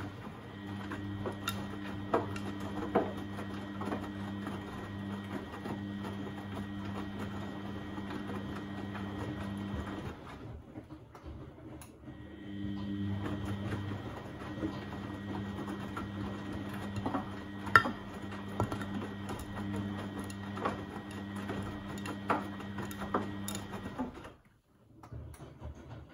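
Beko WMB71642W washing machine tumbling its wash load: the motor hums and whines steadily while the drum turns for about ten seconds, pauses for about two, then turns again for about twelve seconds and stops. Light clicks and knocks come from the load inside the drum.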